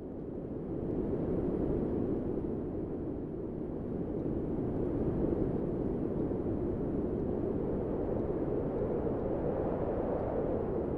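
Steady low rumbling noise with no distinct knocks or tones, swelling in over the first second or two.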